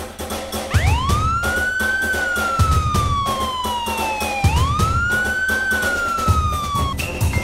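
A siren-like wail over background music with a steady beat. The wail rises quickly and then sinks slowly, twice, and cuts off suddenly near the end, where a high pulsing beep takes over.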